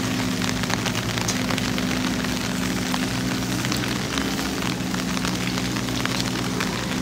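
Steady rain falling, with the patter and scattered ticks of drops landing close by, over a steady low hum.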